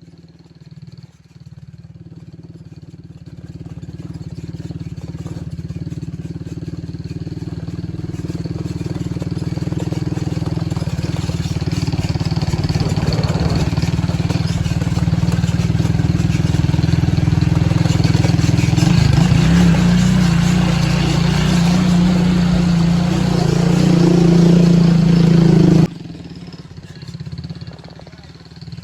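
A motor vehicle engine running steadily and growing gradually louder, with a shift in pitch about two-thirds of the way through. It cuts off suddenly near the end.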